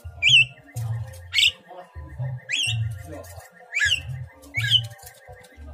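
Caged Javan myna (jalak kebo) calling about once a second, five short whistled notes that each rise and drop away. These are the calls of a bird in breeding condition, one that the keeper says is ready to be paired.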